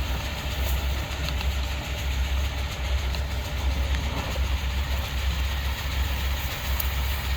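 Vent-cleaning machine running steadily: a continuous low rumble under a rushing hiss of air.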